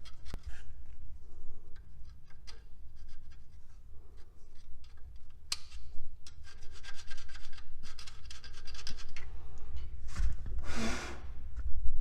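Rubbing and scraping while debris is cleaned out of the points distributor, with scattered small clicks and a denser run of scratching partway through. A short, louder whooshing burst comes near the end.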